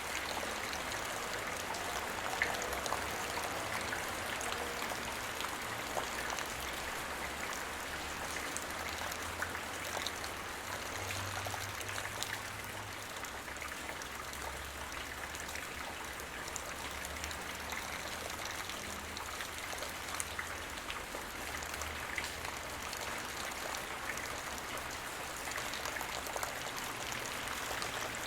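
Light rain falling steadily, drops pattering on the ground as a continuous hiss with many small scattered ticks.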